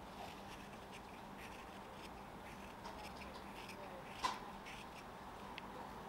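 A carving knife taking small paring cuts on a nectarine-wood fork: faint, scattered ticks and scrapes, with one sharper click about four seconds in.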